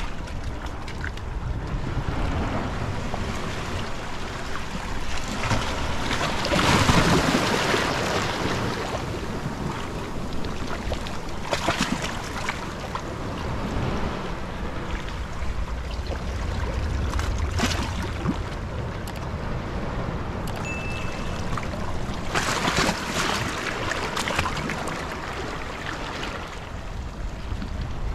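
Small sea waves wash in among breakwater rocks and swirl around a wading man, with wind rumbling on the microphone. The wash swells twice, about a quarter of the way in and again about three-quarters through.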